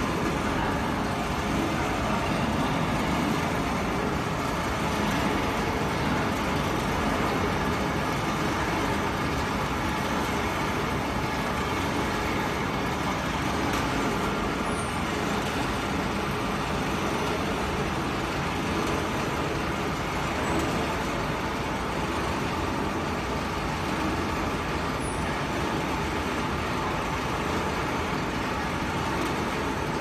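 Continuous carbonization furnace line running: a steady, unbroken machinery noise from its electric drive motors and conveyors.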